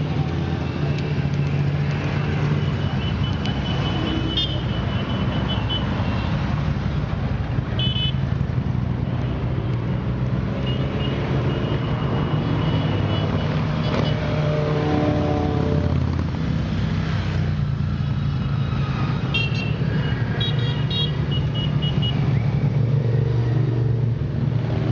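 A procession of motorcycles riding slowly past, many engines running together in a steady drone. Short, high-pitched, pulsing beeps come and go several times.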